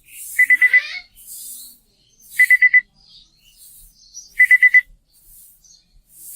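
Walton PS05 Bluetooth speaker's built-in alarm clock going off: a high electronic beep sounded four times in quick succession, repeating every two seconds.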